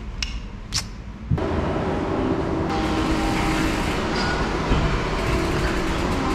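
After a quiet start with a faint click, a steady rumbling noise begins suddenly about a second and a half in: a mountain bike being wheeled over a tiled floor into a lift, heard through a camera mounted on its handlebar, with a rapid freewheel ticking near the end.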